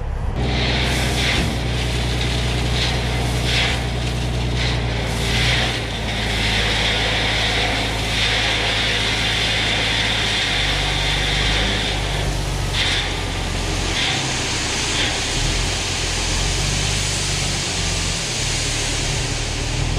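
Dump truck's diesel engine running steadily while the raised box tips out a load of loose gravel. The stones pour and slide out with a continuous rush.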